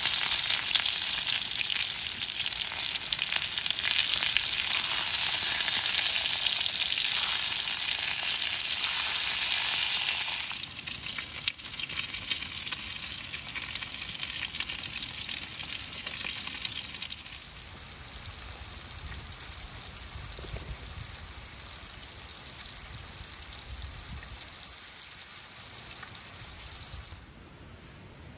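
Food frying in a hot pan: a loud crackling sizzle that drops off sharply about ten seconds in, then settles to a quieter sizzle that fades further near the end.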